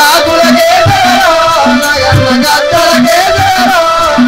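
Accompanying music for a folk drama: a wavering, ornamented melody over a regular drumbeat of about two beats a second.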